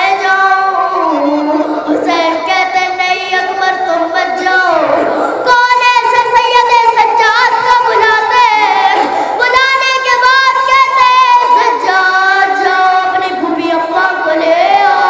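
A single high voice chanting a mournful lament, holding long notes that waver and slide, with short breaths between phrases.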